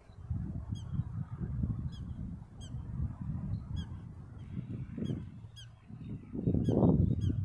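Black-tailed prairie dog giving repeated short, high, downward-sliding alarm barks, about one or two a second. Wind rumbles on the microphone underneath, gusting loudest near the end.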